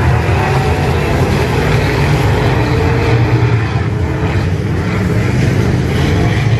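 A field of IMCA Modified dirt-track race cars racing around the oval, their V8 engines running loud and steady together with no letup.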